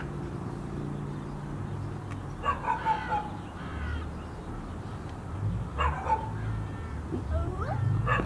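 A toddler's high voice calling out a few short times with swooping pitch, over a steady low hum from the toy electric ride-on motorcycle's motor during the first couple of seconds.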